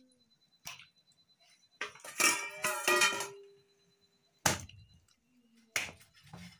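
A clatter with a short ringing tone, then two heavy chops of a large knife into a wooden stump chopping block as raw chicken is cut up.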